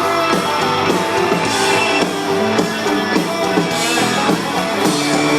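Live country-rock band playing an instrumental passage, with electric guitars over a steady drum-kit beat.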